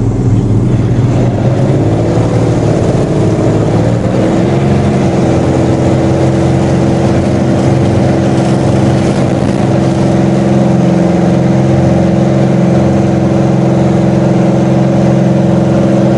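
Cirrus SR20's air-cooled six-cylinder Continental engine and propeller running at low power during the landing rollout, heard inside the cockpit: a steady drone whose pitch wavers a couple of seconds in, then holds steady.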